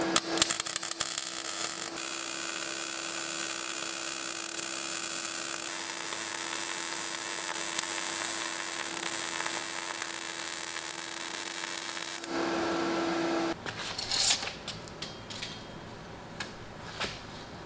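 MIG welder laying a bead on steel tubing: a steady crackling hiss over a steady hum for about twelve seconds, then it stops. A few clicks and knocks follow near the end.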